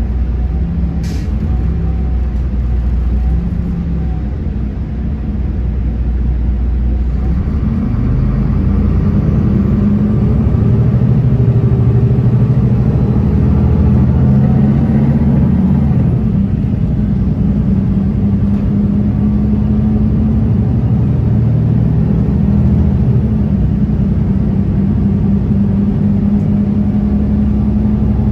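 Solaris Urbino 18 III articulated bus heard from on board: the engine runs low and steady, then about seven seconds in it pulls away and accelerates, and it keeps running under load with a shift in engine pitch around halfway through.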